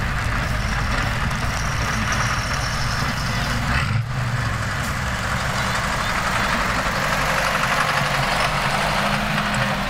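Soviet T-54/55-series tank's V12 diesel engine running at idle, a steady low engine note with a brief break about four seconds in.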